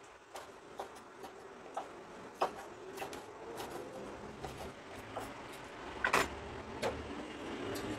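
Cleaver chopping red chilies on a wooden cutting board: irregular knocks of the blade on the board, roughly two a second, the loudest pair about six seconds in.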